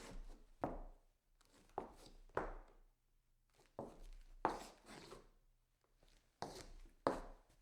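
Shoes scuffing and turning on a wooden floor: short scrapes that come in pairs, about four pairs, each a step followed by a scuff.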